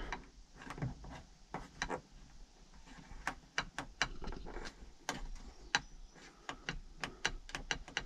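Tractor cab AC control switch and its plastic roof panel being handled and fitted: a run of sharp, irregular clicks, a few a second.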